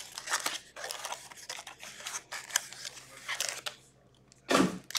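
Cardboard trading-card box opened by hand and its paper-wrapped card packs pulled out: a run of papery rustles and scrapes, a short pause, then one louder rustle near the end.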